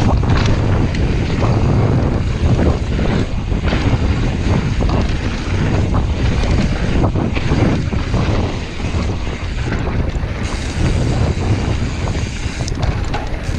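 Wind buffeting the microphone at riding speed, over a steady low rumble of mountain bike tyres rolling on a dirt trail, with irregular knocks and rattles from the bike over bumps.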